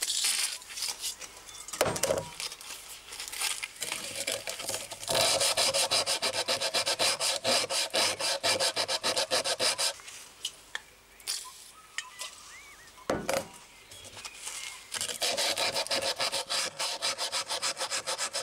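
Fast, even back-and-forth rubbing strokes from hand work on the knife parts on a wooden bench, in two long runs, one through the middle and another near the end, with a few single scrapes between.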